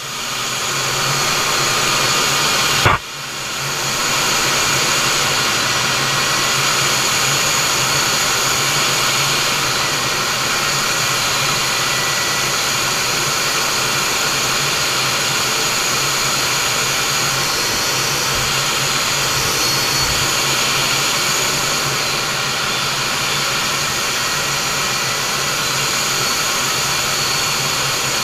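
Steady cockpit noise of a MiG-29 fighter in flight: a constant rush of air over the canopy together with the jet engines' hum. A sharp click about three seconds in, with a brief dip in level.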